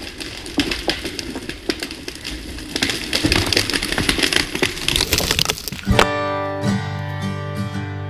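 Irregular cracks and snaps over a rushing noise, then strummed acoustic guitar music starting about six seconds in.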